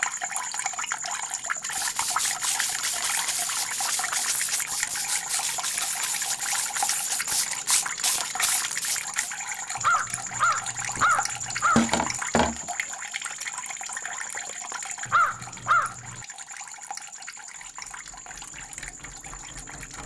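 A broom sweeping a concrete yard in repeated scratchy strokes, which thin out about halfway through. A few short high chirps come in the middle.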